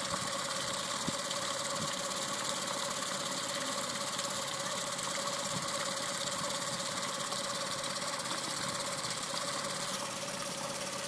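Yamabisi F15 four-stroke outboard engine, cowling off, idling steadily on a test stand with its lower unit in a water barrel.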